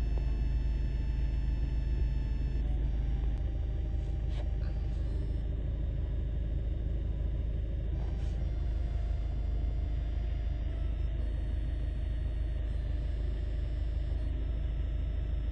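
Steady low rumble of a car's engine and road noise heard from inside the cabin, with the car in slow stop-and-go traffic.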